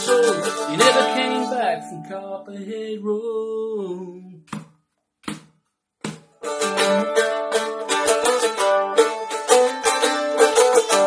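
Mandolin strummed in a country-rock rhythm. The chords ring out and fade about two seconds in, with a couple of short strokes and a moment of silence, then steady strumming starts again about six and a half seconds in.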